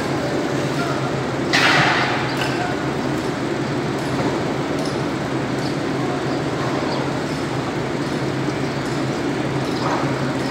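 A steady low machine hum, with a short louder rush of noise about a second and a half in.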